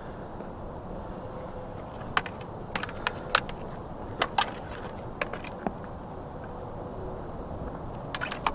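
Training dussacks, sabre and buckler clacking against each other in sparring: sharp strikes in quick flurries from about two to six seconds in, and a couple more near the end, over a steady low background rumble.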